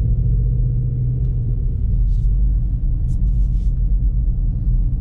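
Chevrolet Silverado 1500 pickup engine running at low speed, a steady deep exhaust rumble heard from inside the cab.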